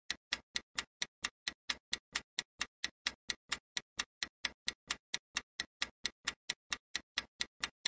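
Ticking-clock countdown sound effect: a steady run of sharp ticks, about five a second, timing the answer period of a quiz question.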